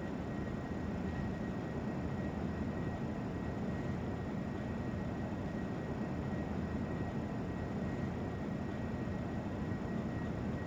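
Steady low rumbling background noise with a faint high steady tone, unchanging throughout.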